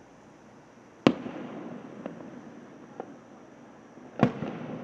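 Fireworks bursting overhead: two loud bangs about three seconds apart, one about a second in and one near the end, each trailing off in a rolling echo, with two fainter pops between them.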